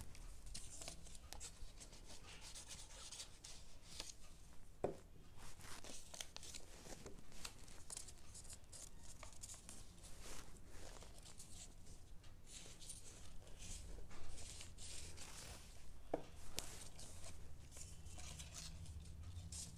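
Folded paper being handled and pressed together by hand, faint irregular rustling and crinkling, with two sharp small clicks, about five seconds in and again near the end.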